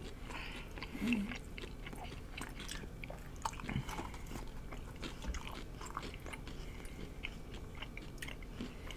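Close-miked chewing of crunchy nacho-flavoured taco shells: soft, scattered crunches and wet mouth clicks.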